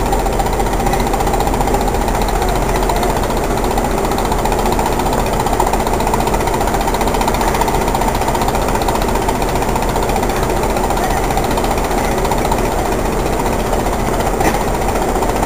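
An engine running steadily close by, with a fast, even rattle.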